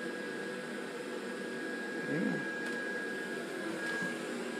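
Small electric blower fan of an inflatable Christmas decoration running steadily: a constant hum and rush of air with a thin, steady high whine. It is a replacement fan, taken from another inflatable after the original burned out.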